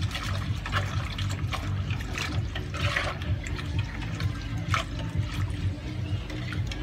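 Thin liquid pouring from a plastic pitcher into a metal wok of simmering pork blood stew while a ladle stirs continuously, with scattered clinks and scrapes of the ladle against the pan. A steady low hum sits underneath.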